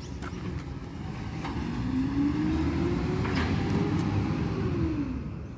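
Garbage truck's diesel engine revving up and then easing back down over a steady low rumble, with a few faint knocks.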